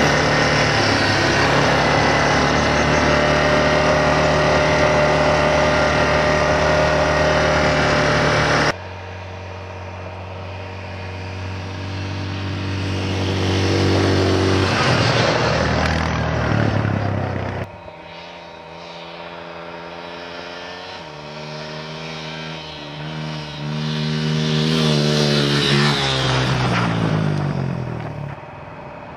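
Quad ATV engine running steadily under throttle, heard close up from the moving vehicle for about the first nine seconds. After a sudden cut, ATVs pass by one after another. Each engine grows louder as it approaches, then drops in pitch and fades as it goes past and away.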